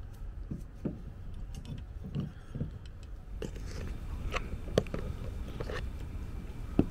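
Handling noise of a backup camera being fitted to its mount: light knocks and clicks of hands on hard plastic and metal parts and cable, with two sharper clicks in the second half, over a steady low rumble.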